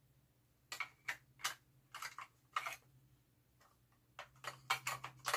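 Clicks and taps from hands working a Polaroid Land Camera Swinger Model 20: a few spaced clicks, a pause, then quicker clicking near the end.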